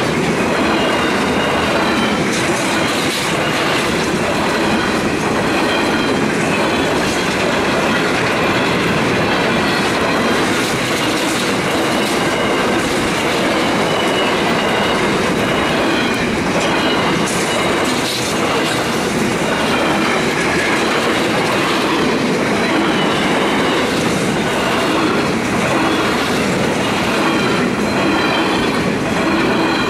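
Long freight train of empty steel-carrying flat wagons running steadily past close by: steel wheels clicking over the rails, with a faint high wheel squeal.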